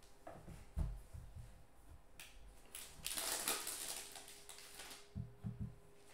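Foil wrapper of a trading card pack crinkling as it is pulled open, loudest about three seconds in, with a few short soft knocks of handling on the table.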